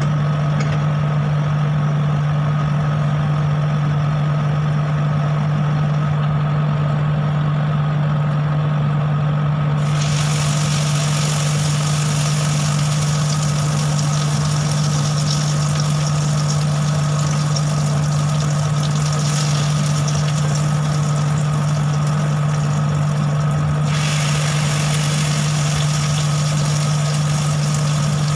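Vegetable-and-beef pancake batter sizzling in hot frying oil, starting about ten seconds in as the first spoonfuls go into the pan, over a steady low hum that runs throughout.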